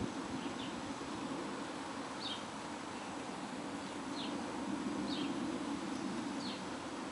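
Outdoor ambience: a steady low hum, over which a bird gives short, high, falling chirps every second or two.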